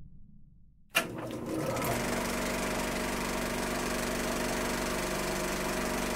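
Film projector running: a steady mechanical clatter over a low, even hum. It starts suddenly with a click about a second in.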